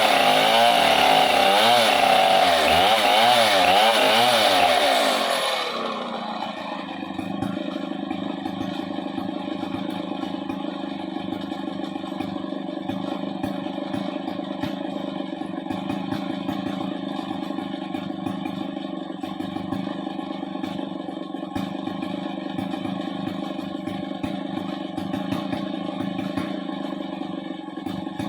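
Two-stroke chainsaw revving in repeated surges for about five seconds, then dropping to a steady idle.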